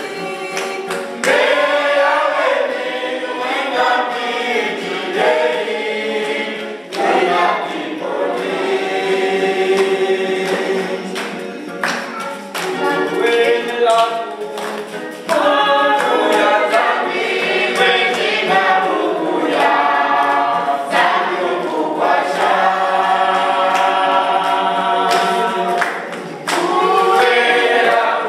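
A small choir of young men and women singing together, accompanied by an acoustic guitar.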